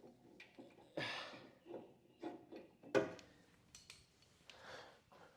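Quiet handling noises: scattered rubbing and small knocks, with a sharp click about three seconds in.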